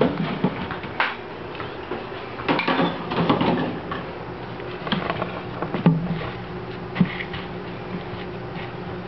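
Gerbil cage being handled: scattered knocks and clatters as its lid and sides are moved, with a dense run of small knocks about two and a half seconds in, over a faint steady hum.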